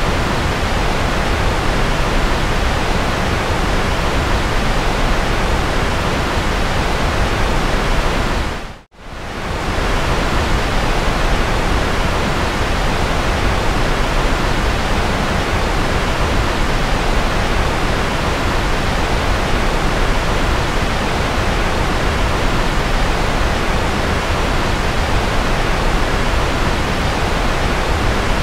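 Steady, even hiss of white noise. About nine seconds in it briefly fades almost to silence, then comes back up.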